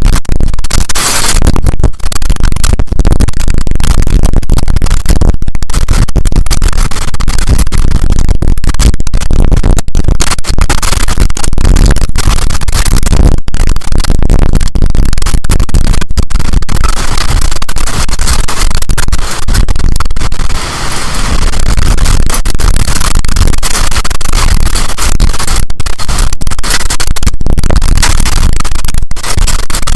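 Strong storm wind blasting the microphone: a loud, distorted rush of noise, heaviest in the low end, with many brief dropouts.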